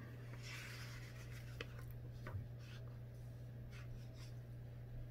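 Paper reader being handled and its pages moved: a soft paper rustle about half a second in, then a few faint light ticks of paper. A steady low hum lies underneath.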